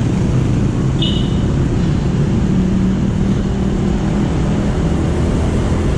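Motorcycle riding in city traffic: a steady engine and wind rumble on the bike-mounted camera. A short high-pitched tone sounds about a second in.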